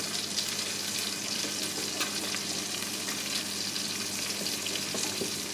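Creamy sauce of chicken stock, cooking cream and cheese sizzling and crackling in a pan on the heat, a steady crackle with many small ticks. A faint steady hum lies underneath.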